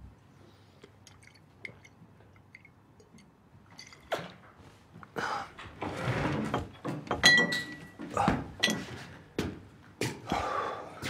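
A few faint clicks, then a run of knocks, thuds and rustling as a man handles glass bottles and gets up off a sofa, with one clear ringing clink of glass about halfway through.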